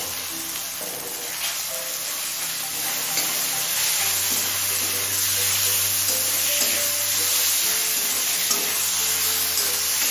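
Boneless chicken pieces sizzling in hot oil in a kadai with onion and tomato, stirred as they fry. A steady hiss that grows a little louder after the first second or two.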